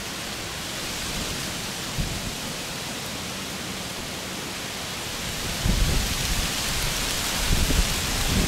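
Steady outdoor hiss, with irregular low rumbles of wind buffeting the microphone in the second half.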